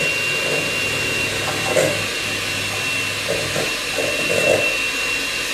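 Electric hand mixer running steadily with a high whine, its beaters whipping egg whites in a stainless steel bowl for a French meringue.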